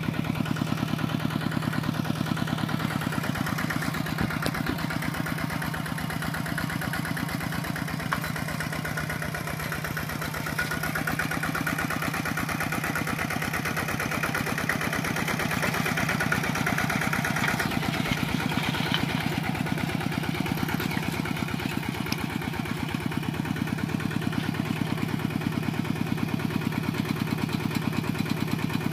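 Kubota RT120 walking tractor's single-cylinder diesel engine running steadily with rapid, even firing pulses. It grows somewhat louder for several seconds around the middle, then settles back.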